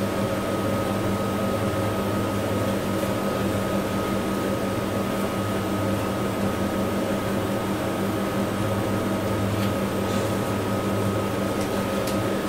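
A steady machine hum at a constant level, with a thin high tone held throughout.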